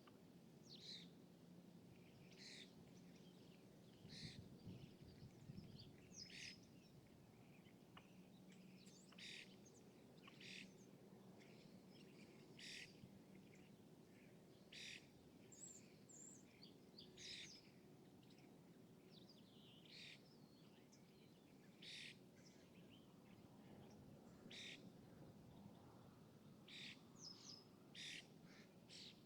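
Small birds chirping: short high calls repeated every second or two, over a faint, steady low background hum of lakeside city ambience.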